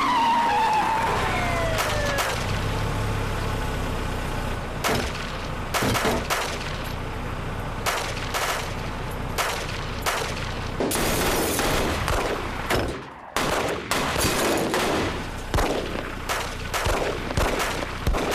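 An exchange of gunfire: a long string of single gunshots at irregular intervals, some in quick succession, with a short lull about two-thirds of the way through. At the start, a police car's siren winds down in pitch.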